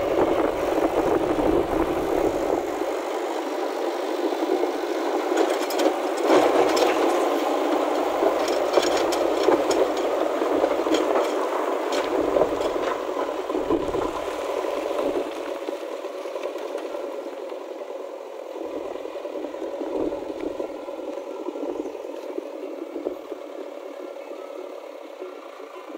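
JCB backhoe loader's diesel engine running as its front loader bucket scoops up broken stone slabs, with a burst of scraping and clattering rubble in the first half; the engine runs on more quietly in the second half.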